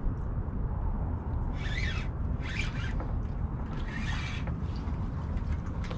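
Fishing reel zipping in three short bursts of about half a second each while a hooked fish is fought, over a steady low rumble.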